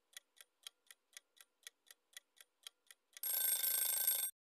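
Countdown-timer ticking sound effect, a clock-like tick-tock of about four ticks a second alternating louder and softer. About three seconds in it gives way to a hissy, buzzing end-of-timer sound effect of about a second.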